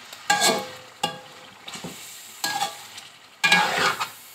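Steel slotted spoon scraping and stirring chicken pieces around a metal pot, about five separate strokes of metal on metal over a low sizzle of frying. The chicken is being fried with ginger-garlic paste to cook off the paste's rawness.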